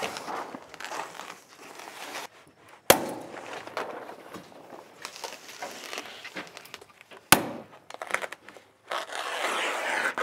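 Plastic house wrap rustling and crinkling as a roll is unrolled and pressed against wood framing. Two sharp knocks cut in, about three seconds in and again about seven seconds in.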